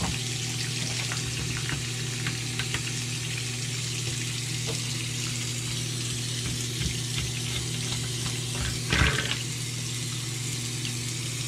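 Bathroom faucet running a steady thin stream into the sink drain over a constant low hum, with scattered small clicks and a brief louder noise about nine seconds in.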